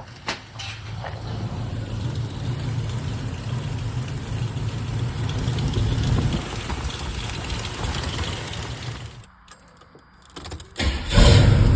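Cammed small-block Chevy V8 idling steadily on freshly installed headers, with a header exhaust leak the owner is still chasing. Near the end the sound drops away for about a second and a half, with a few clicks, then the idle returns louder.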